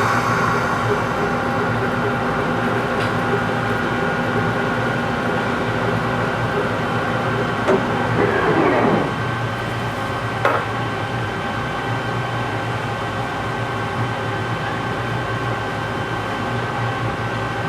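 Large metal lathe running steadily while turning an oversized part, a constant machine hum with several steady tones. About eight seconds in a short sweep falls in pitch, and a couple of sharp clicks come before and after it.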